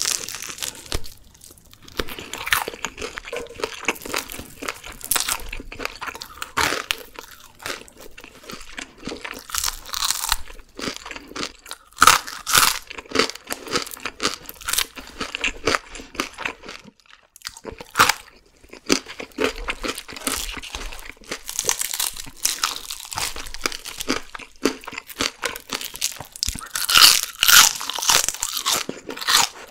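Close-up eating sounds of crispy deep-fried whole chicken being bitten and chewed: a dense run of crunches from the fried skin, louder about twelve seconds in and again near the end.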